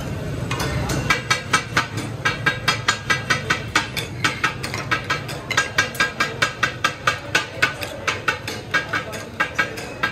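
Katakat chopping: two steel blades striking and clanging on a flat iron griddle in a steady rhythm, about three ringing strikes a second, starting about a second in.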